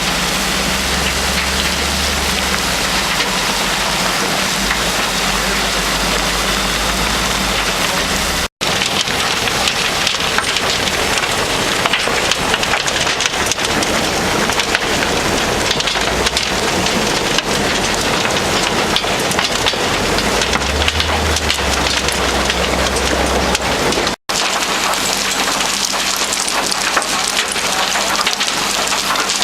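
Trommel screen running in demolition waste: broken rubble clatters and rattles steadily as it tumbles in the rotating drum, over a low machine rumble. The sound breaks off sharply twice, at cuts between shots.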